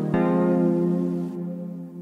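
Background music: a sustained keyboard chord struck just after the start and slowly fading toward the end.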